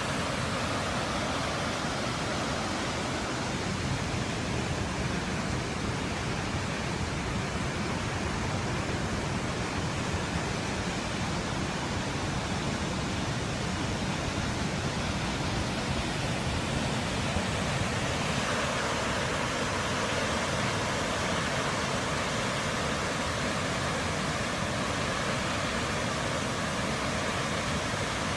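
Heavy water discharge from a dam's spillway gates, rushing steadily with a flow swollen by typhoon rain. The tone shifts slightly about two-thirds of the way through.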